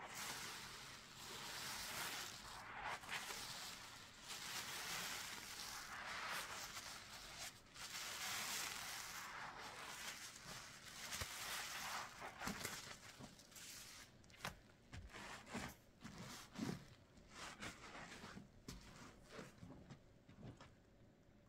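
Thick soapy lather being squeezed and worked by hand: a soft, uneven foamy hiss that breaks up, about two-thirds of the way in, into short separate squelches and clicks.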